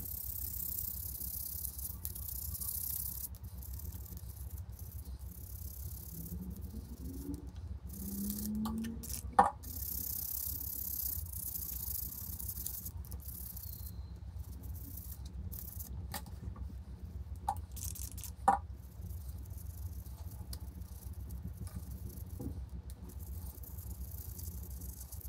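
Handling sounds of a wristwatch being cleaned with a cotton swab and a small tool: a few sharp clicks and taps, the loudest about nine seconds in, over a steady low hum.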